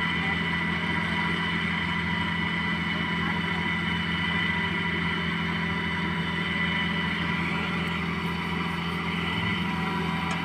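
Excavator's diesel engine running steadily at an even, unchanging speed.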